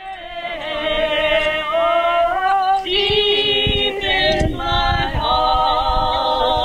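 Group of people singing a slow protest song together without accompaniment, on long held notes.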